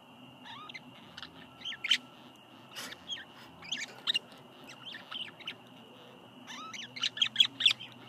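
Budgerigars chirping and chattering in short rising and falling chirps, in scattered groups, with a quick run of louder chirps near the end.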